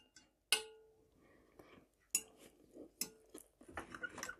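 Metal fork clinking and scraping against a plate while cutting an omelette: sharp clinks about half a second, two and three seconds in, the first and last with a short ring, then a run of small taps near the end.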